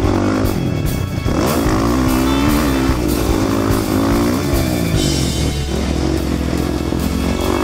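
Dirt bike engine revving up and down as it is ridden over a motocross track, its pitch rising and falling about once a second, with background music over it.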